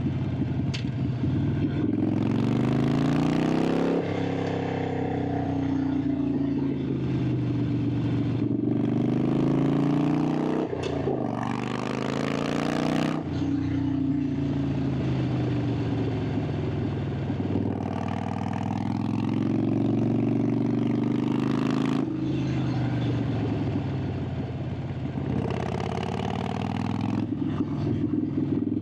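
Harley-Davidson Sportster 883's air-cooled V-twin and exhaust pulling under throttle on a winding road: the revs climb and drop sharply about three times as the rider rolls off or shifts, with slower falls in pitch as the bike slows between pulls. Wind rush rises with each burst of speed.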